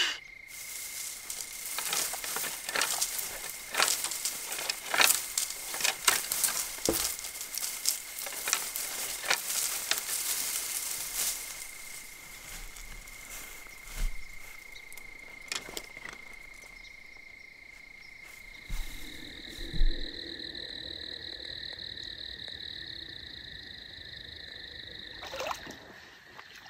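Outdoor evening ambience: a thin, steady high-pitched call with many sharp clicks over the first half. The background changes about two-thirds of the way through, when a second, higher steady tone comes in.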